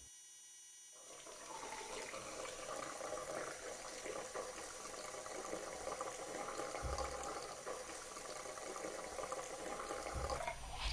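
Bathroom sink tap running, water splashing into the basin as a man washes his face. It starts about a second in and stops abruptly near the end.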